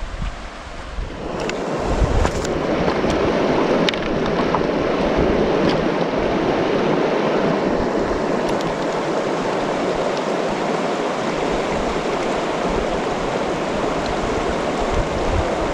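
River water rushing, a steady loud wash that swells about a second in and then holds.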